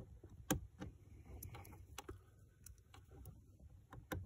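Faint scattered clicks and plastic rustling as a wiring cable is handled and plugged into a connector under a car's dashboard, with one sharper click about half a second in.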